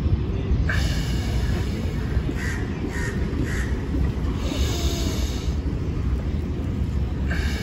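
Crows cawing: one caw about a second in, three short caws in quick succession a little later, and a longer caw near the middle, over a steady low rumble.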